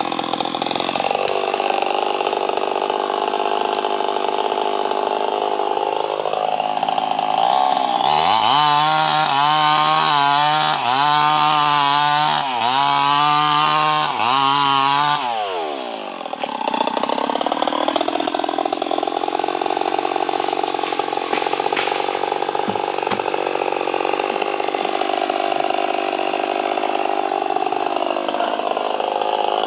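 Chainsaw cutting through mahogany wood, its engine pulling under load. About eight seconds in it revs up to a higher, wavering pitch for some seven seconds, then drops sharply and runs on steadily under load again.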